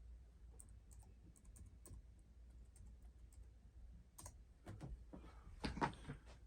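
Faint, scattered clicks of computer keys being pressed, with a cluster of louder clicks and knocks about four to six seconds in.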